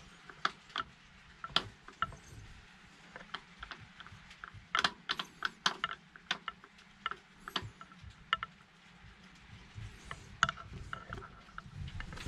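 Scattered light clicks and taps, irregular and a few at a time, from hands handling parts around a stopped Bukh DV10 marine diesel engine while grease is worked onto the starter and fittings.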